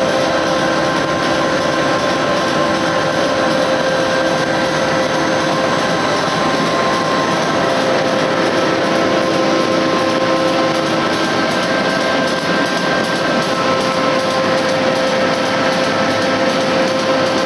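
Stack-type flexographic printing press running, a steady dense machine noise with a few faint steady tones that come and go.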